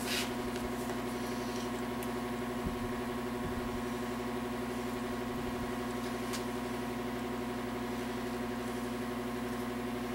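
Steady, even machine hum from running shop equipment, with a few faint clicks as small engine parts are handled.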